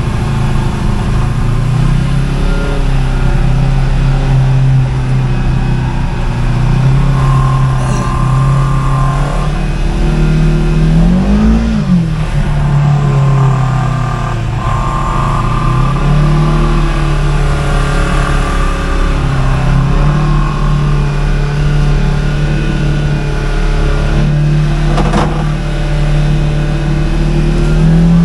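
Segway Villain side-by-side's engine running under way, its pitch rising and falling with the throttle, with one quick rev about eleven seconds in. A steady low rumble runs underneath.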